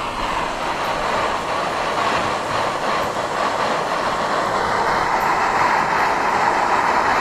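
Pressure cooker under pressure, steam hissing and rattling steadily from its valve while the piranha cooks, growing slowly louder.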